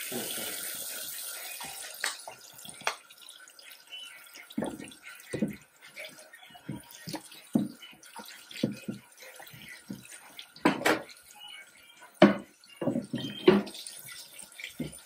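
Kitchen faucet running into a stainless steel sink, the water hiss strongest just after it is turned on. A wooden cutting board is scrubbed under the stream with a sponge, with repeated knocks and clunks as the board bumps the sink, loudest about 11 to 12 seconds in.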